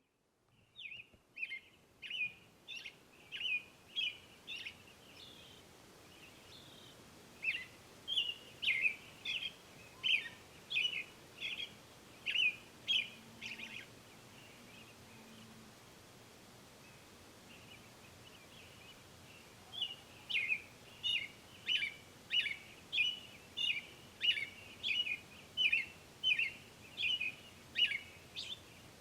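A songbird calling in three bouts of short, sharp chirps, about two a second, with pauses of several seconds between bouts.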